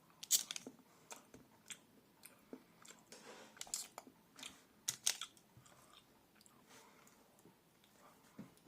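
A person chewing a piece of smooth milk chocolate: irregular wet mouth clicks and smacks, loudest in the first second and again around four and five seconds in.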